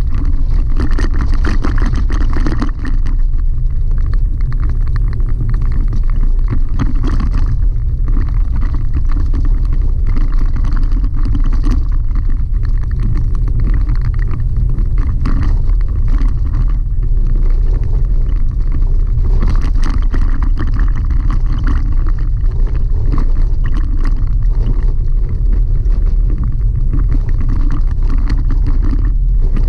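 Chevy Colorado ZR2 pickup driving on a gravel dirt road, heard from inside the cab: a steady low rumble of tyres and drivetrain, with many small clicks and rattles over the top.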